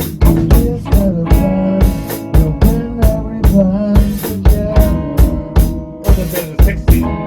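A band playing an instrumental passage: drum kit with bass drum and snare keeping a steady beat under sustained pitched instruments and a wavering melodic line.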